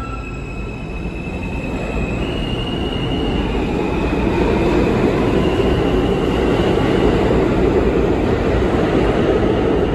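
NYC Subway R160B train pulling out, its Siemens propulsion whining in tones that step in pitch. Under the whine is a rumble of wheels on rail that grows louder as the train gathers speed.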